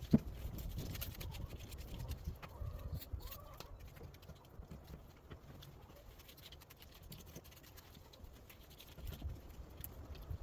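Quiet handling noises from glue being brushed onto the wooden drawer parts: scattered light taps and clicks, with one sharp knock right at the start.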